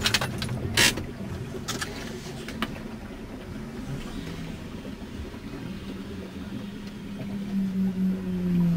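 Toyota Corolla's engine running as the car churns through pond water, heard from inside the cabin, with a few sharp knocks in the first three seconds. Near the end the engine note grows louder and holds steady.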